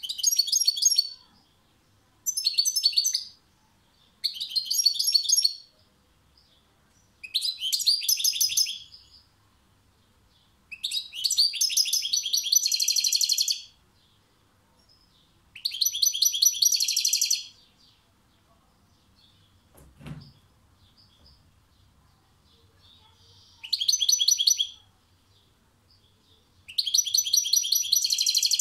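Caged European goldfinch singing: fast, twittering song delivered in about eight separate bursts of one to three seconds, with short pauses between them and a longer pause near the two-thirds mark. A soft low thump falls in that pause.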